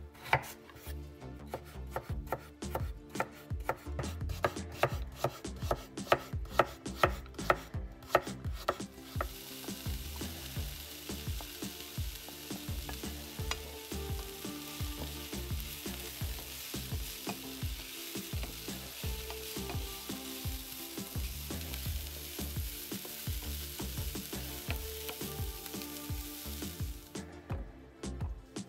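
Knife chopping on a cutting board, quick repeated strokes, for about the first eight seconds. Then food sizzling as it fries in oil in a pan, a steady hiss that stops shortly before the end.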